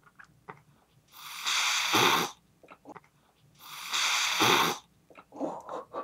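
Adult orange-and-white cat hissing twice, each hiss about a second long and about two and a half seconds apart: a threat warning that drives the approaching kitten back.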